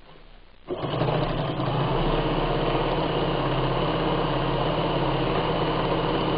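Bernina 817 sewing machine starting about a second in and running at full speed in a fast, even stitching rhythm, sewing through a leather belt about 3–4 mm thick.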